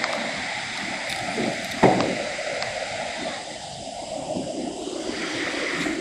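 Steady rush of a waterfall, with a single sharp knock about two seconds in.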